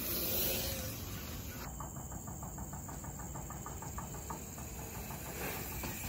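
Mountain bike passing with a rush of tyre noise, then from about two seconds in a steady, even clicking of about eight clicks a second, typical of the rear hub's freewheel ratchet as the bike coasts.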